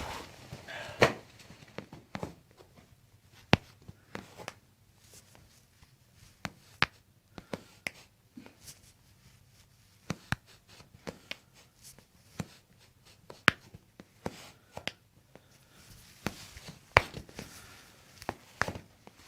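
Sharp clicks and pops during a chiropractic treatment, irregular and roughly one a second, with a few louder ones spread through.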